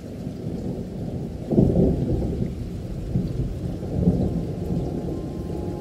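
Rain and thunder: a steady, muffled rain hiss with a rumble of thunder swelling about a second and a half in and a lesser one around four seconds.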